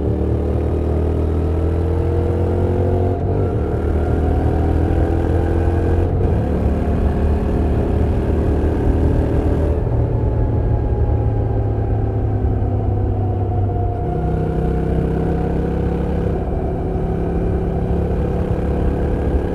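2024 Honda NC750X's 745 cc parallel-twin engine and exhaust under hard acceleration. The pitch climbs, and twice, about three and six seconds in, it drops as the bike shifts up and then climbs again. After about ten seconds the pitch slowly falls as the throttle eases, then holds steady.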